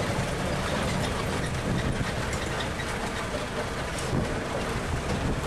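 Tour tram driving along a dirt track: a steady engine rumble mixed with road noise.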